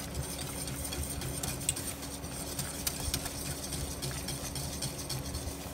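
Wire whisk stirring cornmeal into hot liquid in a stainless steel pot, its wires ticking against the pot in quick, irregular strokes, over a steady low hum.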